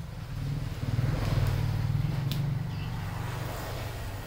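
Low engine rumble of a motor vehicle passing close by, swelling about a second in and easing to a steadier drone. A brief sharp high sound about two seconds in.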